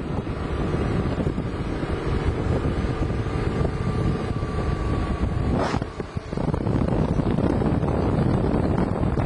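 Steady rushing wind noise on the microphone of a camera carried along in a fast inline skating pack, briefly dropping away about six seconds in.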